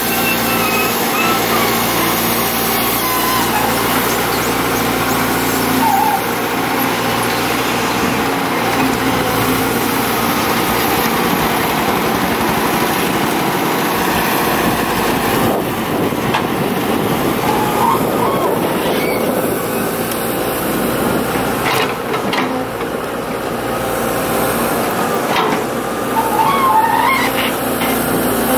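Kobelco crawler excavator's diesel engine running steadily under working load as it digs soil and swings it into a small dump truck, with a few sharp knocks and a couple of short squeaks along the way.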